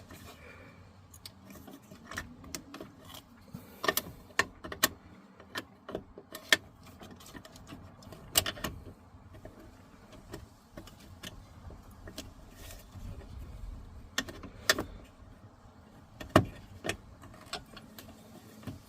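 Irregular clicks, knocks and rattles of a Chevy Express shifter cable end being worked and wiggled free of the shifter link after its two locking tabs are pressed in. The loudest knock comes near the end.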